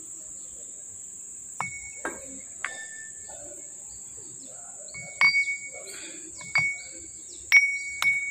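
Heavy steel machine parts clinking together: a splined gear coupling knocking against a spiral-bevel crown gear. There are about seven sharp metallic clinks, each with a short ring, and the loudest come in the second half.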